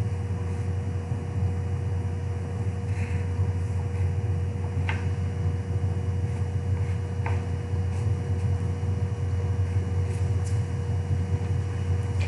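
Steady low mechanical hum with a faint constant higher tone over it, as from an air conditioner or fan running in the room; two faint ticks about five and seven seconds in.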